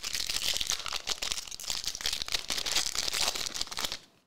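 Foil trading-card pack wrapper crinkling and crackling as it is torn open by hand. The sound is continuous and busy, then cuts off sharply about four seconds in.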